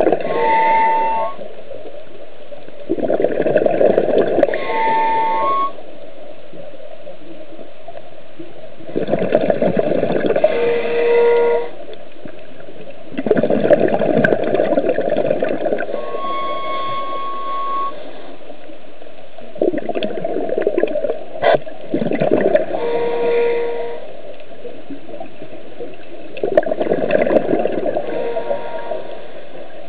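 Scuba diver breathing through a squeaky regulator underwater. Six breaths come every few seconds, each a rush of air and bubbles, and most carry a thin, steady squeal from the regulator, over a constant hiss.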